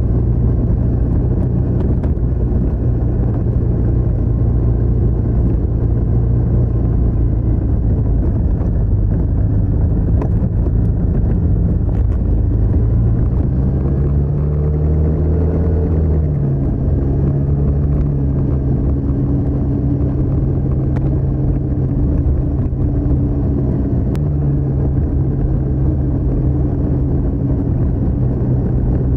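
TVS NTorq 125 scooter's single-cylinder four-stroke engine and stock exhaust running under way, heard from the rider's seat. The engine note holds steady, rises as the throttle opens about halfway through, then eases back in two steps.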